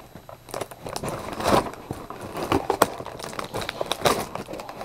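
Toy model packaging being worked open by hand: irregular crinkling and crackling with small sharp snaps.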